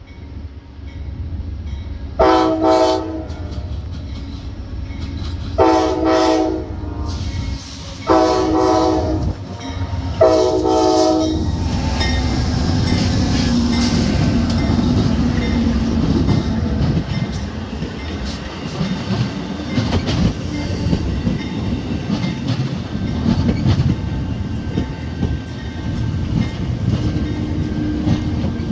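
Amtrak GE Genesis P42DC diesel locomotive sounding its horn in four blasts of about a second each as it approaches. The locomotive and its passenger cars then roll past close by, a steady rumble with the wheels clicking over the rail joints.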